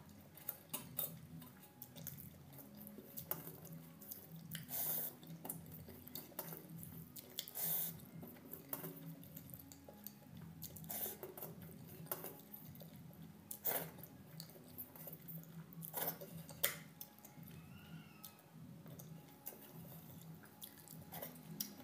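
Fingers scooping and squeezing wet, watery rice in a steel plate: soft squelches and drips with scattered light clicks of fingers on the metal, along with quiet chewing. The sounds are faint.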